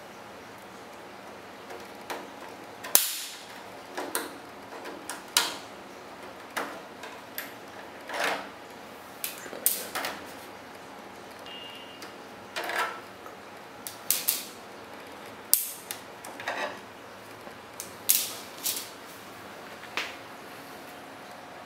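Mesh front drive-bay covers of an NZXT Tempest 410 Elite PC case being unclipped and pulled out by hand, one after another: a long run of sharp clicks and clacks, some in quick pairs, with a short rattle after some of them.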